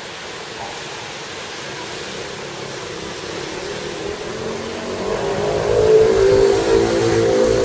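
Traffic noise, with a motor vehicle's engine drawing closer and growing louder from about four seconds in, loudest around six seconds.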